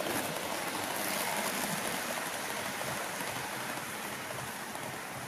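HO-gauge model of JR Hokkaido's Super Hokuto diesel train running past on the layout track: a steady rolling rush of wheels on rails and motor, loudest about a second in and slowly fading.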